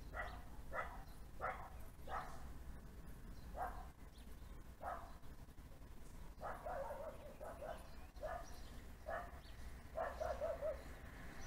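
A dog barking repeatedly: single barks at first, then two quicker runs of barks about six and ten seconds in.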